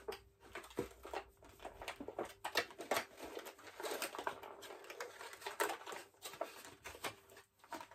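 Irregular clicks, taps and short rustles of small objects being handled close to the microphone, with no steady rhythm.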